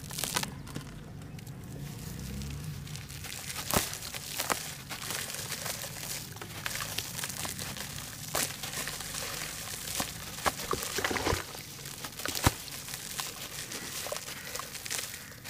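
Hands crushing a damp chunk of charcoal ash, a steady gritty crunching with a few sharp cracks as pieces break, while crumbs fall into the water in the tub.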